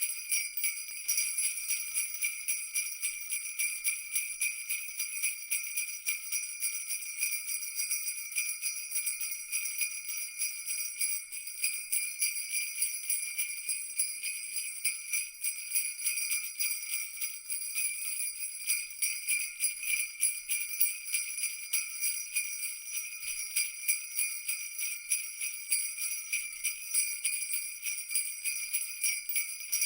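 Jingle bells shaken continuously in a fast, even jingle with no pauses.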